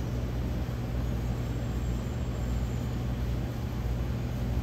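Steady low hum and whoosh of commercial kitchen machinery, with a constant low drone and no change throughout.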